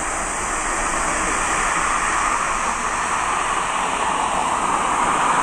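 Jet airliner's engine noise, a steady noise that grows slowly louder.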